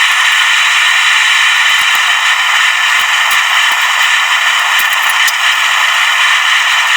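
Electric drill boring through steel: a loud, steady high-pitched whirring grind with faint ticks of metal chips and rattle.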